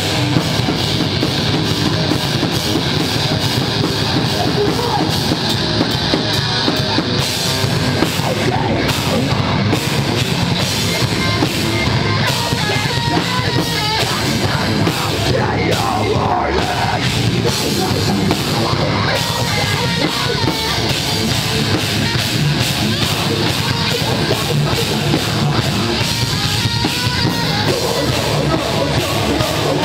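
A heavy rock band playing live with a drum kit and guitars: dense, loud and steady, with no pauses.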